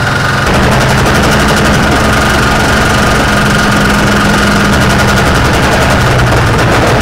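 Rotax 503 two-stroke twin-cylinder engine of a Challenger 2 ultralight running steadily at idle, its propeller turning, just after a cold start on full choke. It gets slightly louder about half a second in.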